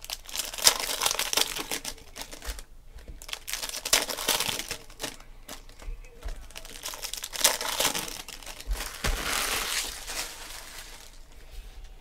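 Foil wrappers of Panini Prizm football card packs crinkling and tearing open in irregular bursts, with the cards handled and set onto a stack.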